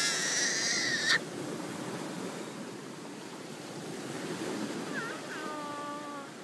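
Waves washing on a rocky shore, a steady rush. A young child's high-pitched voice trails off about a second in, and a shorter vocal sound comes about five seconds in.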